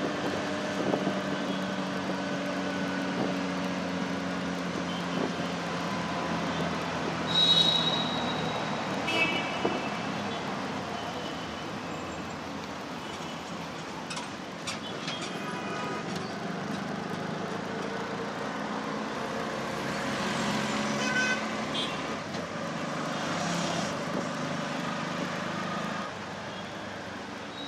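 Auto-rickshaw engine running as it drives through city traffic, heard from inside its open-sided cabin, with traffic noise around it. Other vehicles' horns toot several times, the loudest about seven seconds in.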